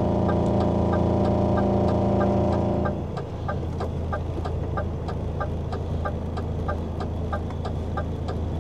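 Lorry's indicator ticking steadily in the cab, about three clicks a second, over the low rumble of the idling truck engine while it waits to turn. A steady droning hum on top drops away about three seconds in.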